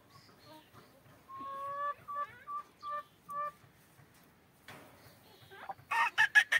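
Chickens calling: a held note, then four short calls, then a loud fast run of clucks near the end.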